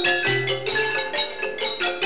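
Background music: a quick melody of short, struck notes that ring briefly, over a low repeating bass note.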